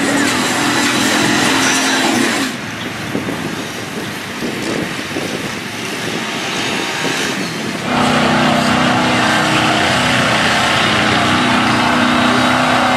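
Lifted 4x4 mud trucks' engines revving hard as they plough through a mud pit. From about 2.5 s to 8 s the sound drops to a quieter, choppier engine, then an engine comes back loud, held at a steady high pitch.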